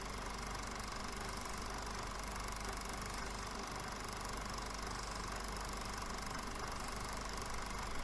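Film projector running steadily, its mechanism clattering rapidly over a constant hum and hiss.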